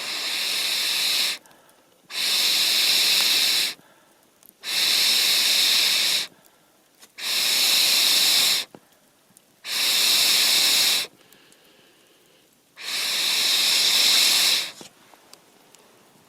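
A person blowing six long, hissing breaths of air, each lasting about a second and a half, with short pauses for breath between them.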